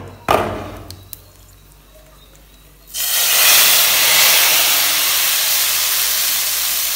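Hot tadka oil with whole dried red chillies poured into a pot of kadhi, setting off a sudden loud sizzle and hiss of steam about three seconds in that carries on steadily. Before it, a short knock or two of the pan being handled.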